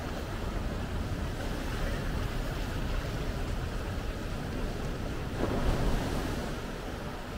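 Small ocean waves breaking and washing up a sandy beach: a steady surf hiss with a louder surge about five and a half seconds in.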